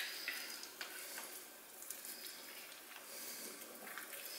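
Faint handling sounds of hands rolling a raw pork roulade with its vegetable filling on a glass board: soft moist rustling with a few small clicks near the start.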